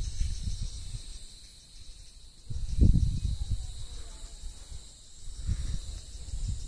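Wind buffeting the microphone in irregular gusts, the strongest about three seconds in, over a steady high insect drone.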